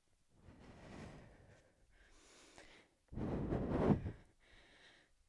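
A woman breathing hard from exertion: a soft exhale about half a second in, then a loud, forceful exhale about three seconds in.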